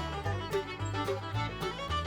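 Background music: an upbeat instrumental with a steady beat and a moving bass line.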